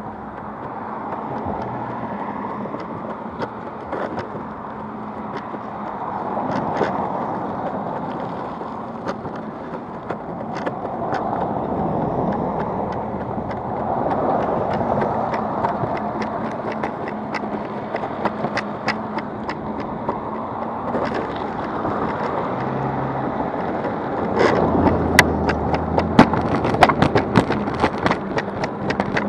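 Backfire Ranger X2 all-terrain electric skateboard rolling along road pavement: a steady rumble of wheels on asphalt with a faint hum underneath, swelling and fading several times. About twenty-four seconds in, a quick run of clicks and rattles sets in, as over rougher pavement.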